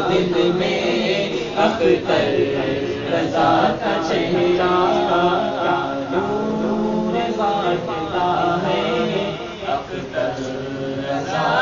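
Male voice singing an Urdu manqabat in a slow devotional chant, drawing out long held notes that bend in pitch.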